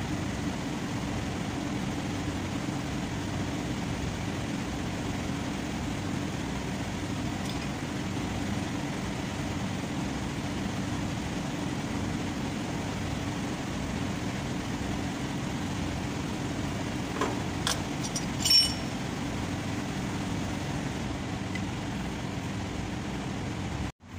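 Steady low mechanical hum of a machine or engine running in the workshop. Two short metal clinks come about 17 and 18 seconds in, the second louder, as tools are handled at the wheel hub.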